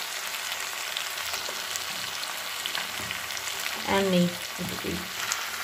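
Diced potatoes and vegetables frying with fish fat in hot oil in a kadai, stirred with a wooden spatula: a steady sizzle with small clicks and scrapes. About four seconds in there is a brief, louder pitched sound.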